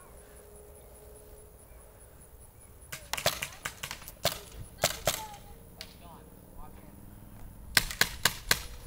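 Paintball markers firing. A quick string of about eight sharp pops comes around three to five seconds in, then a burst of four more near the end.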